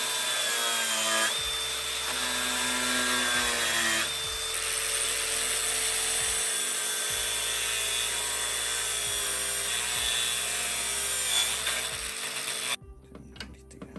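Cordless angle grinder running steadily with a high whine, its disc grinding down the corner of a thick rubber round-baler belt to round it off. It stops abruptly near the end.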